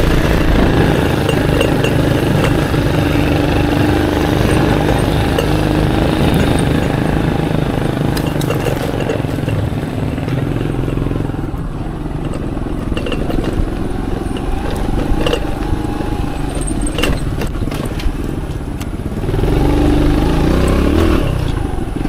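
Aveta Ranger Max Explorer motorcycle engine running under way off-road. It eases off about halfway through, with scattered sharp knocks, then revs up again near the end.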